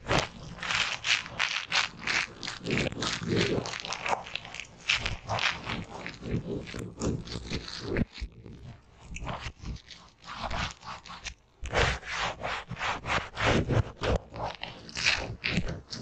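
A soap-lathered sponge squeezed and rubbed against a table, the wet foam squishing and crackling in quick strokes, several a second. Short pauses come about eight and eleven seconds in.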